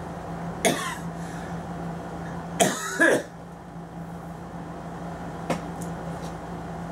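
A man clears his throat with short coughs: one brief burst about half a second in, then two louder ones around three seconds in. A single light click follows near the end, over a steady low hum.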